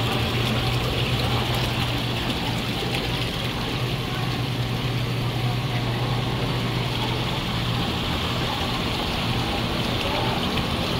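Live seafood tanks running: water circulating and splashing with a steady pump hum underneath.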